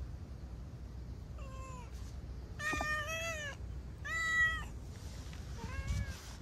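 Calico cat meowing four times, the second and third calls louder and longer than the faint first and last.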